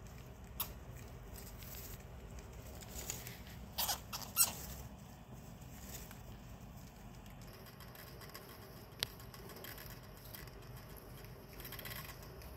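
Hamsters scurrying through wood-shavings bedding: faint scattered rustling, with a few sharp crackles of the shavings, loudest about four seconds in.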